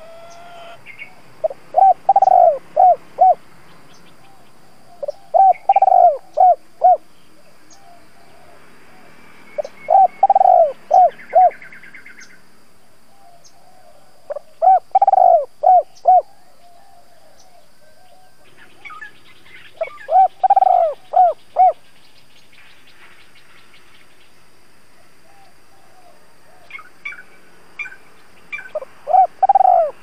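Spotted dove (cu gáy) cooing: phrases of a few deep coos, each phrase a longer coo followed by shorter ones, repeated every four to five seconds, with a longer pause near the end. This is the decoy dove's calling ('thúc gù, gáy gọi') used to draw wild doves.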